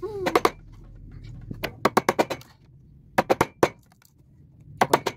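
A wood chisel being struck into a timber rail to chop out a joint, in quick clusters of three to five sharp knocks with short pauses between.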